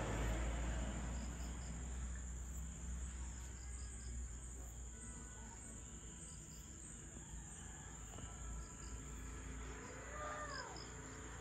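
Steady high insect drone from the forest, with a low rumble fading away over the first couple of seconds. A short rising-and-falling bird call comes about ten seconds in.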